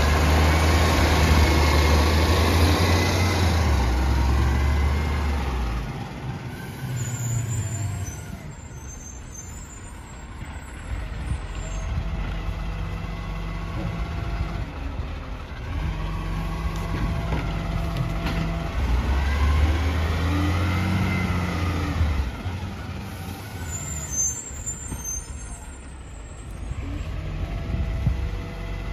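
Garbage truck engine running, revving up for several seconds at the start and again about two-thirds through, with quieter idling between.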